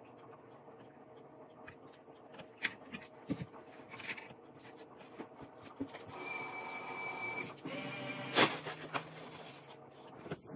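Kitchen work at a counter and sink: scattered clicks and knocks of dishes and utensils. About six seconds in, a steady hiss lasts a second and a half. It is followed by more rustling and one sharp knock, the loudest sound, about eight and a half seconds in.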